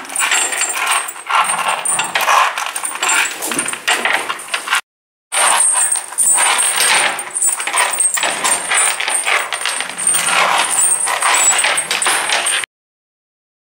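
Stainless steel anchor chain links clinking and rattling as a sow roots at the branched chain and works it against the straw-bedded floor: a dense run of metallic clicks. It breaks off for a moment about five seconds in and stops shortly before the end.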